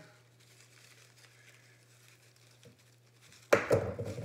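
Low steady hum in a quiet room. Near the end comes a sudden loud burst of handling noise lasting under a second, as wire snips and an artificial floral pick are handled on a granite countertop.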